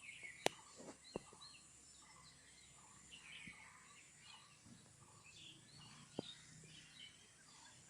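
Faint outdoor ambience of birds chirping, with many short scattered calls. A few sharp clicks stand out, two near the start and one near the end.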